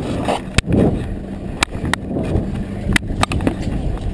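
Boat engine running as a steady low rumble, with wind and rustling on the camera's microphone and several sharp clicks and knocks of the GoPro being handled and bumped.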